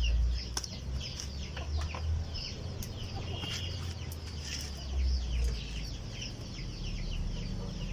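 Chickens clucking and calling in short, scattered notes over a low steady rumble.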